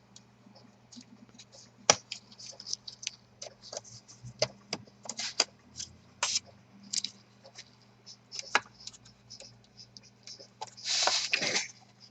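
Plastic bottom cover of a Dell Inspiron 3582 laptop being pried off, its clips clicking and scraping in short irregular bursts, with one sharper snap about two seconds in and a longer scrape near the end.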